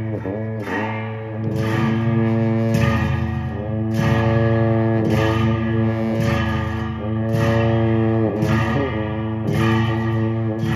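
Tibetan monastic Cham music: dungchen long horns hold a low steady drone under a melody of notes about a second long, each scooping up in pitch at its start, with a hissing cymbal stroke at most note changes.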